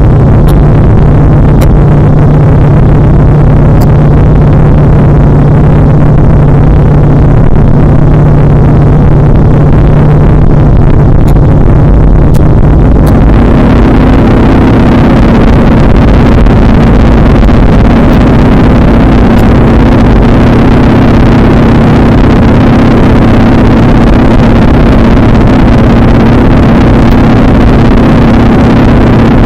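PZL-104 Wilga light aircraft's engine and propeller running at high power under the load of towing a glider, a loud steady drone heard from inside the cockpit. About halfway through the drone shifts to a higher pitch with more hiss.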